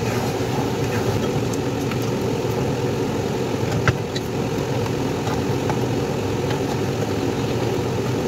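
A steady low mechanical hum runs under light knocks and clinks as whole blue crabs are laid into a wok of sauce. The sharpest knock comes about four seconds in.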